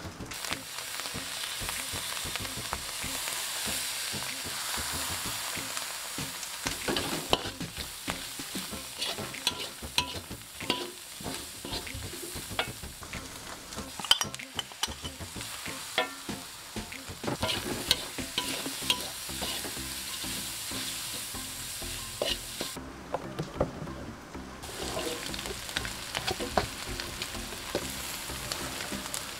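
Stir-frying in a wok: ingredients sizzling steadily in hot oil while a metal spatula scrapes and clacks against the pan. The sizzle drops away for a moment about three-quarters of the way through.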